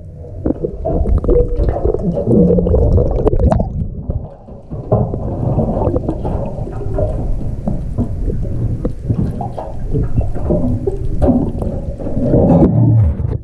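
Underwater water noise picked up by a submerged camera: a dull, muffled, continuous rumble and gurgle, with scattered small clicks.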